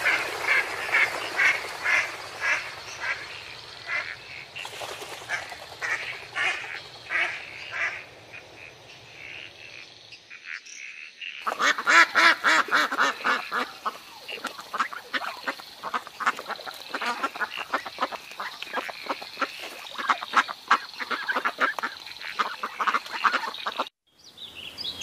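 Ducks calling in a run of short calls, about two a second. After a cut about halfway through, a flock of domestic geese on the water calls and honks over one another, louder and denser.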